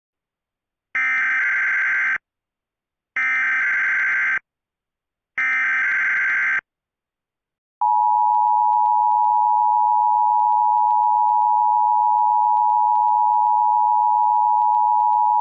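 Emergency Alert System encoder tones: three short, shrill SAME header data bursts about a second apart, then the steady two-tone EAS attention signal starting about eight seconds in.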